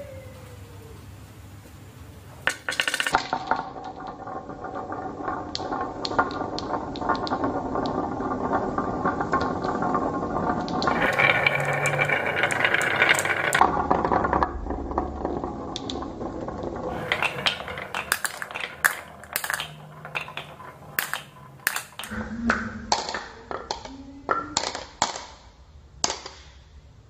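Many glass marbles rolling down wavy grooved wooden tracks: a dense rattling rumble full of clacks starts about two and a half seconds in. Later it thins into separate sharp clicks and clinks as the last marbles knock together and drop into a ceramic teacup.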